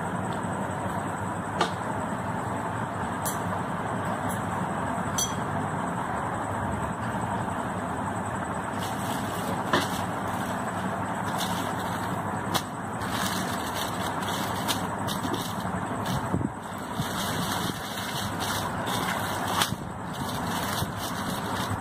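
Steady background rumble with a few sharp clicks over it. From about the middle on, bursts of crinkling rustle come and go as a plastic sheet is handled on the counter.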